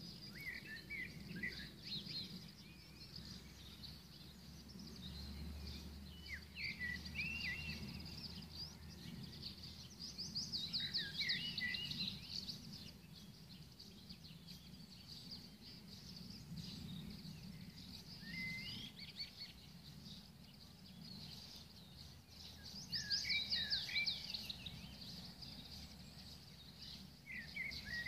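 Garden songbirds singing in short, trilling phrases every few seconds, loudest twice: about two fifths of the way in and near the end. A faint, steady low outdoor rumble sits underneath.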